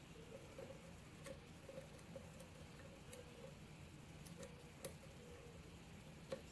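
Hook pick working the pin stack of a euro cylinder lock under tension, making faint, irregular small metal clicks and scratches. A slightly louder click near the end is a pin setting, pin 6, giving the core a little turn.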